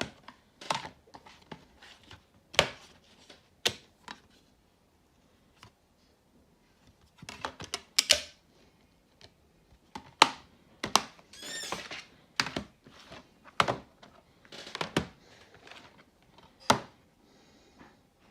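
DVD cases being handled: a series of sharp plastic clicks and knocks, with a short squeak about eleven and a half seconds in.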